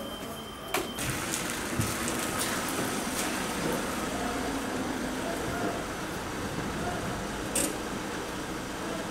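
Steady outdoor street noise with the hiss of traffic, broken by a sharp click about a second in and another near the end.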